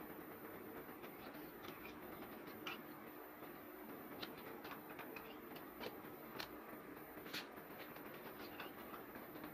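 Faint, scattered small ticks and rustles of hands working fiberglass cloth over a styrofoam plug and dabbing it with a foam brush. They come irregularly, thicker from about a second and a half in, over a faint steady hum.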